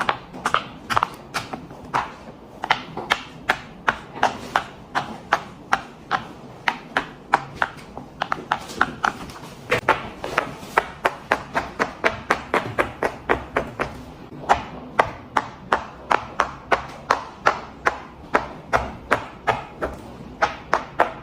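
Silicone pop-it fidget toy being popped bubble after bubble: a long run of quick, sharp pops at about four or five a second, unevenly spaced.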